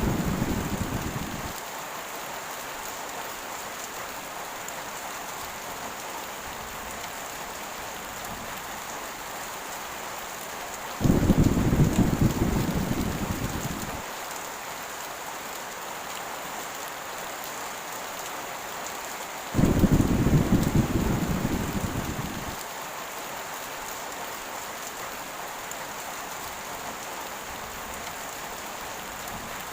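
Heavy rain falling steadily, with thunder rolling three times: a deep rumble dying away in the first second or so, then two more about 11 and 19 seconds in, each starting suddenly and fading out over about three seconds.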